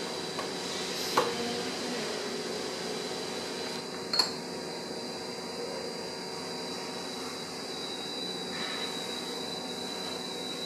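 Two short knocks of ceramic being set down, about three seconds apart and the second the sharper: the upper porcelain cup seated into a tea-brewing machine's body and its lid put on. Underneath is a steady room hum with a faint high whine.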